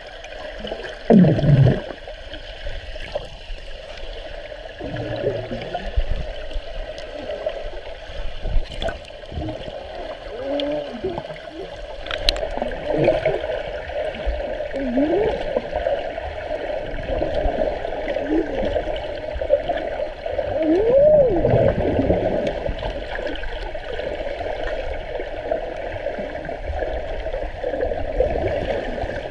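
Swimming pool heard underwater: a steady muffled rush of moving water, with bubbling and gurgling swoops as swimmers move past, loudest about a second in and again about two-thirds of the way through.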